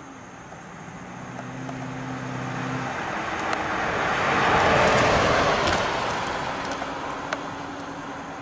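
2009 Dodge Challenger R/T's 5.7-litre Hemi V8 driving past. Its low, even engine note and tyre noise swell to their loudest about five seconds in, then fade as the car moves away.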